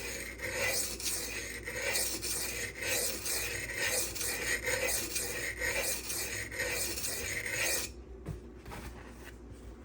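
M390 steel knife blade scraping back and forth across a silicon carbide whetstone in steady, even strokes, about one and a half a second, blending the freshly raised bevel together. The strokes stop about eight seconds in.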